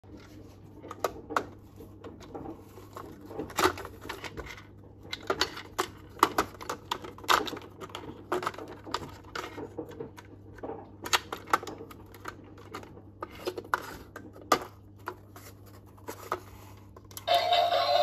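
Irregular clicks and knocks of a small plastic toy washing machine being handled and set down on a hard counter. Near the end the toy switches on and starts playing a loud electronic tune.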